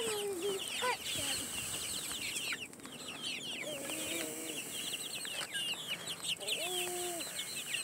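Flock of young white Leghorn chickens peeping, a continuous stream of quick high falling cheeps, with a couple of longer, lower calls about four and seven seconds in.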